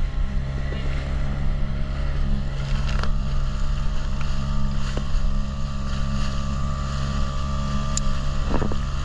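A motorboat's engine running steadily at a constant speed, with wind buffeting the microphone.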